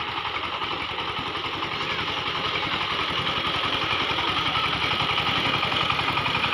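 SIFANG power tiller's single-cylinder diesel engine running steadily with a rapid, even chugging beat while its blades churn through the flooded paddy mud. It grows louder as the machine comes closer.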